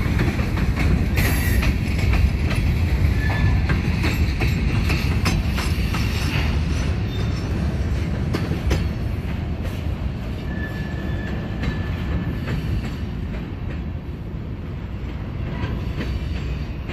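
Covered hopper cars of a freight train rolling past, a steady rumble with steel wheels clacking over rail joints and a couple of brief wheel squeals. The rumble eases off over the last few seconds as the end of the train passes and moves away.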